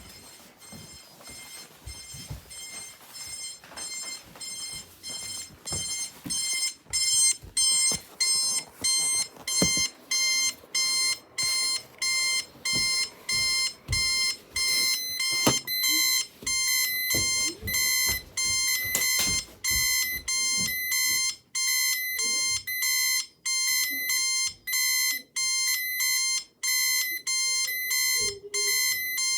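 Electronic alarm beeping at about two beeps a second, each beep a high, buzzy tone. It grows louder over the first several seconds, then keeps an even level.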